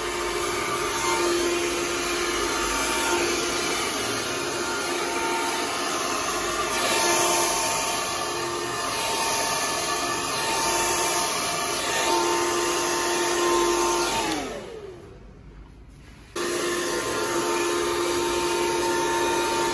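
Ikonic Pro 2500+ hand-held hair dryer blowing steadily, a rushing airflow with a steady motor whine. About 14 seconds in its whine falls away as it winds down and stops, and about two seconds later it comes back on sharply at full speed.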